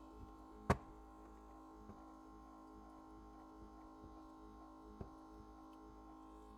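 Faint steady hum, broken by one sharp click a little under a second in and a fainter tick about five seconds in.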